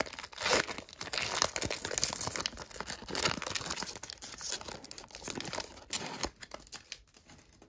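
Plastic wrapper of a Panini NBA Hoops trading card pack crinkling and tearing as it is opened. The crackling is loudest about half a second in and dies away shortly before the end.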